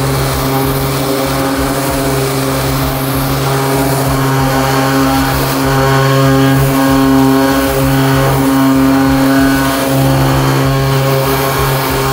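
Orbital sander running against the bare steel rear quarter panel of a car body: a steady hum that dips briefly a few times.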